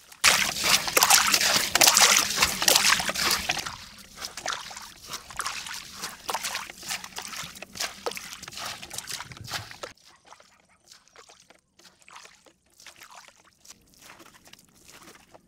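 Water sloshing and splashing, loudest in the first few seconds. It stops abruptly about ten seconds in, leaving only faint scattered clicks.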